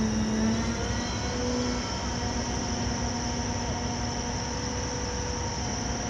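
Arleigh Burke-class destroyer's gas-turbine machinery running at the pier: a steady high whine over an even rush, with a few steady lower hum tones.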